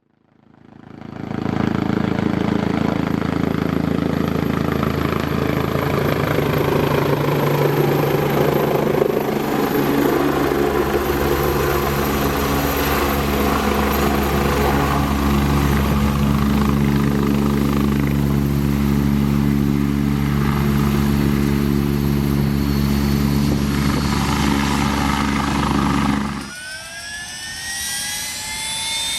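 Radio-controlled scale model helicopter of a Eurocopter EC 135 running, a steady motor-and-rotor whine with a fixed pitch. About 26 seconds in the sound drops suddenly and a rising whine starts, climbing steadily.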